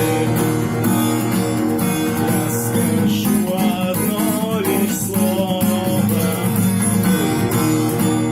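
Guitar music: an acoustic guitar playing chords and notes steadily.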